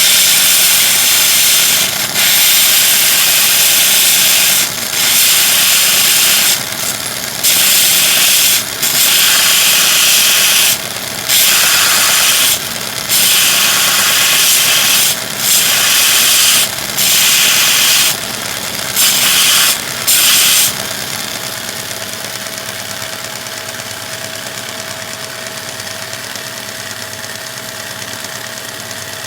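Homemade belt grinder driven by a three-phase electric motor, with metal pressed against the running belt in repeated passes: a loud grinding hiss, broken by short gaps about a dozen times. About 21 seconds in the grinding stops, and the motor and belt run on alone with a steady tone.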